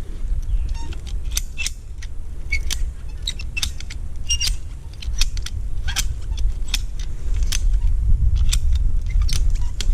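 Ratchet strap being worked, giving irregular sharp metal clicks, several a second in places, over a steady low rumble of wind on the microphone.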